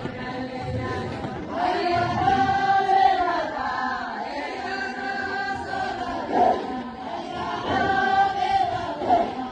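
A group of women chanting a Nabi Amaan, a Somali devotional song in praise of the Prophet Muhammad, singing together in long, held phrases with short breaks between them.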